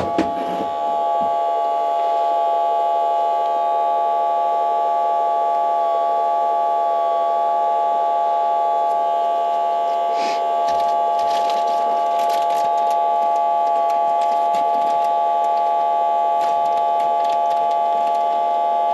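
Autel smoke leak detector's built-in air pump running, a steady electric whine that holds one pitch while the machine pushes smoke out of its hose. In the second half, clicks and rustling from handling join it.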